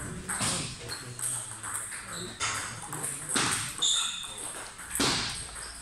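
Table tennis ball clicking off paddles and the table during a rally, a quick irregular series of sharp pocks, with hits from neighbouring tables in the same hall mixed in.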